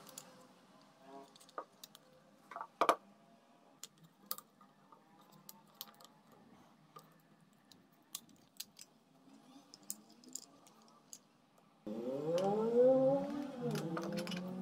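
Faint scattered clicks and taps of small objects being handled, one sharper click about three seconds in. Background music comes in suddenly about twelve seconds in and is the loudest sound.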